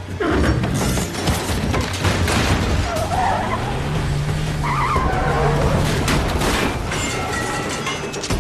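Action-film sound effects of cars driven hard: engines running loud with tyre skids, in a dense continuous mix, and an engine note rising about halfway through.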